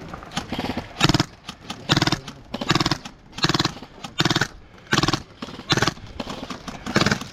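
A person breathing hard and heavily close to the microphone, a voiced gasp roughly every second, after a sprint.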